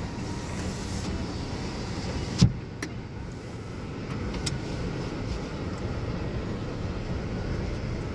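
Steady low rumble of a car heard from inside the cabin, with a single sharp knock about two and a half seconds in and a lighter click just after.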